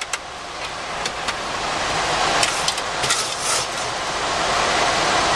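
Steady rushing noise of airflow and engines inside a Boeing 737-400 flight deck in flight, with a few light clicks. The noise drops suddenly at the start, then slowly builds again.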